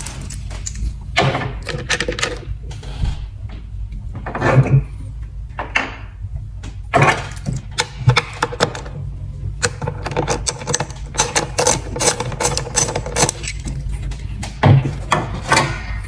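8mm socket ratchet clicking in quick runs, with short pauses, as the bolts are backed out. A steady low rumble runs underneath.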